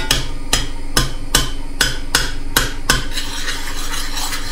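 A utensil mashing banana into oat porridge and stirring it in a pot, knocking against the pot about twice a second. Near the end it turns to softer stirring.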